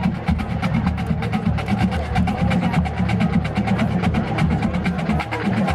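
Marching band drumline playing a fast cadence: rapid, even snare strokes over low bass drums.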